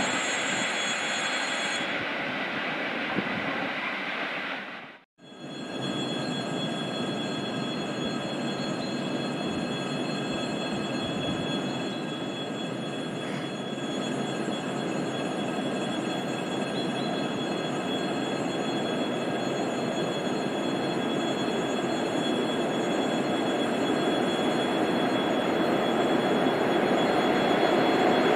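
A train running, a steady rumble with several high steady whining tones over it. The sound drops out sharply for a moment about five seconds in and grows louder near the end.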